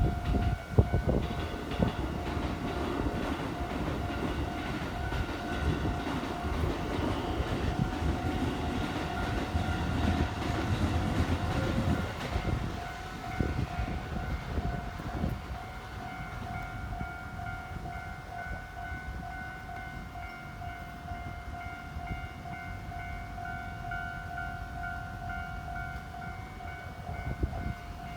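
Keikyu electric train rumbling over a level crossing, its noise and wheel clicks dying away after about twelve seconds. The crossing's electronic warning bell keeps ringing throughout.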